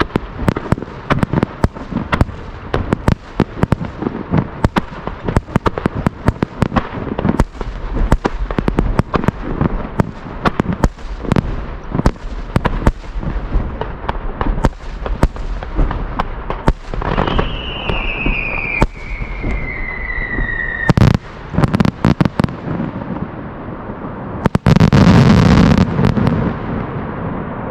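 Fireworks display: a rapid barrage of shell bursts and crackling, with a whistling tone sliding down in pitch about two-thirds of the way through, then a very loud boom near the end that rumbles on for a couple of seconds.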